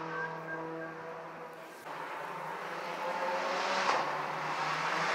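Race car engines heard from the roadside. A car's engine note holds steady and fades over the first two seconds. Then, after an abrupt change, another car approaches, its engine and tyre noise growing steadily louder toward the end.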